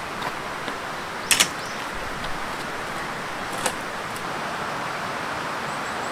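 Folding aluminium-frame bench being opened out and set down: its metal frame clacks twice in quick succession about a second and a half in, then gives a single click near four seconds, over a steady background hiss.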